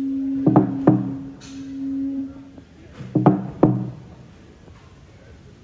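A Fijian lali slit log drum beaten by hand with sticks, two hard beats at a time: one pair about half a second in, another about three seconds in. A steady low horn-like tone holds under the first pair and stops about two and a half seconds in.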